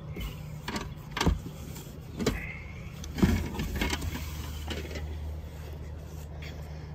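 Rummaging in a cardboard box of neckties: a few dull knocks and rustles of cardboard and fabric in the first three seconds or so. A low steady hum runs underneath, and a deeper hum joins about three seconds in.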